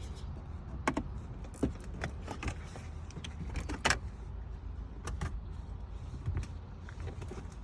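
Scattered clicks and light knocks of a car's plastic shift-console trim cover being worked loose and handled, over a low steady hum.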